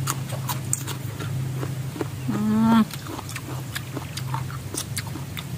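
A person eating pickled chicken feet: sharp crunches and mouth clicks from chewing, with one short voiced hum about two seconds in. A steady low hum runs underneath.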